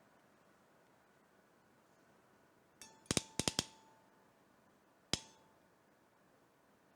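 KF-30J ratchet crimping tool clicking as its handles are squeezed on an insulated butt connector: a quick run of four or five sharp metallic clicks with a short ring about three seconds in, then one more click about two seconds later.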